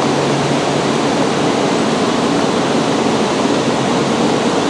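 Steady, even rushing noise from a double-deck E4 series MAX Shinkansen standing at the platform, its onboard ventilation and cooling equipment running.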